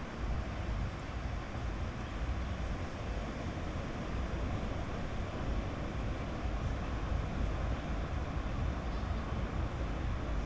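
Sea waves on a beach: a steady rumble and hiss with no breaks.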